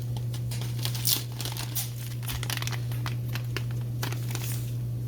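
Plastic bag of jasmine rice crinkling and rustling as it is pulled and worked at by hand in an attempt to tear it open, with irregular sharp crackles. A steady low hum runs underneath.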